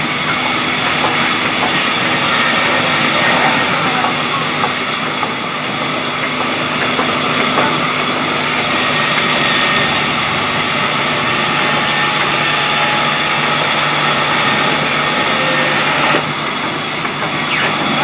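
Sawmill band saw machinery running steadily, a loud even mechanical noise with a steady hum under it, the blade not yet in the wood.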